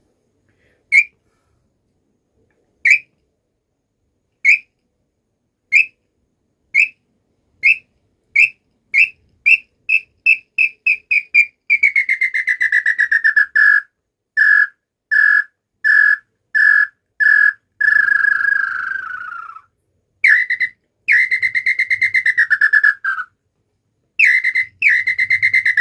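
A wooden cruzeta bird call (an old Amaurílio Coelho pio) blown to imitate the song of the small-billed tinamou (inhambu-chororó). Single whistled notes come about a second and a half apart, then speed up into a rapid run, followed by a string of short falling notes and several longer descending phrases.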